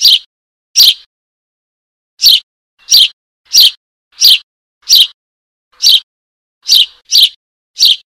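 Eurasian tree sparrow chick begging for its parent: a series of short, high chirps. Two come close together, then there is a pause of about a second and a half, then the chirps come roughly one every two-thirds of a second.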